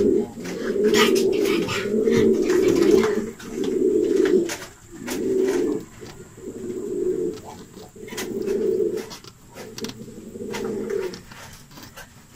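Domestic pigeons cooing: a run of low coos about a second long each, repeated with short gaps and growing fainter toward the end.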